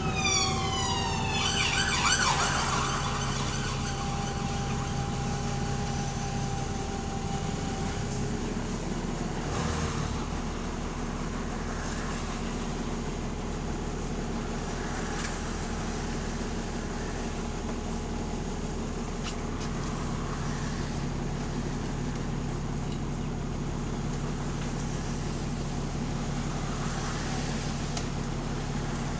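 Double-decker bus engine running with a steady low drone and exhaust-leak noise. Over the first couple of seconds a whine sweeps down in pitch, and a steady tone fades out after about eight seconds.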